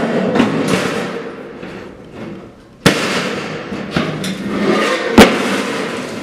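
Expanded-metal grill grate rattling and clanking against a cut-open 55-gallon steel drum as it is lifted out, with two sharp metal bangs, about three seconds in and about five seconds in, the second the louder.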